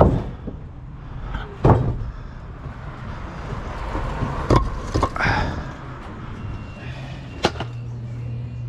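About five sharp knocks and bangs, irregularly spaced, over a steady low hum.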